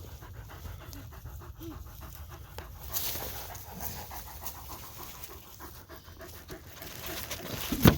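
A dog panting quickly and rhythmically.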